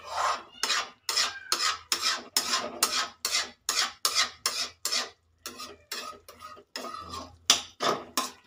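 Metal spatula scraping and stirring potato and spinach curry in a metal kadhai, an even run of strokes about two or three a second with a short pause in the middle.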